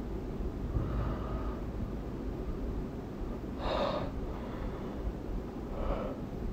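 A woman taking short, sharp breaths through her nose and mouth: three of them, the loudest about four seconds in, over a low steady background rumble.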